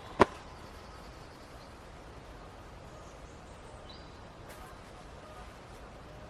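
A single sharp knock or snap just after the start, then faint steady outdoor background with a brief, faint bird chirp about four seconds in.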